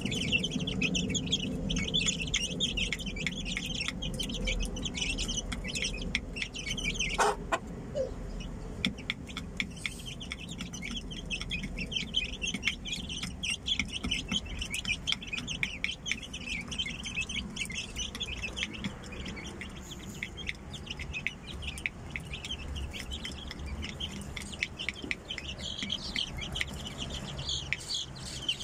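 Aseel chicks peeping constantly in a dense, rapid chorus, with a hen clucking low beneath them. One sharper call falls in pitch about seven seconds in.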